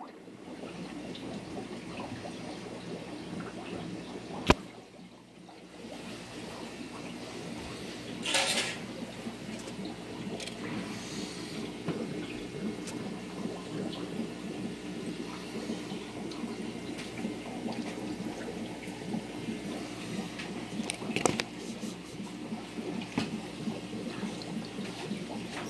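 Aquarium water running: steady trickling and splashing of water over a low hum. There is a sharp knock about four and a half seconds in, a brief louder rush of water a few seconds later, and a few more clicks past twenty seconds.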